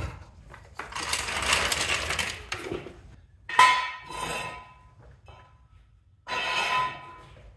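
Steel floor jack and jack stands being handled as the car is let down off them: a stretch of scraping, then a sharp metallic clank with a ringing tone about halfway, and another ringing clank near the end.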